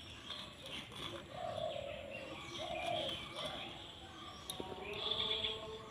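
A dove cooing, a few short low coos about a second and a half in, with small birds chirping.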